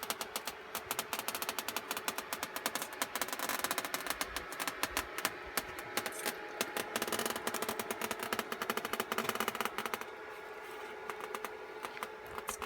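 Welding inverter powering a nichrome hot-wire cutter through extruded polystyrene foam. There is rapid irregular crackling, like a typewriter, over a steady hum, and the crackling thins out after about ten seconds.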